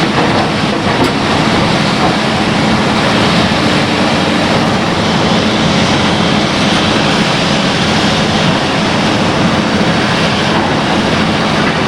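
Excavator's diesel engine running steadily, a loud, even drone with no change in pitch.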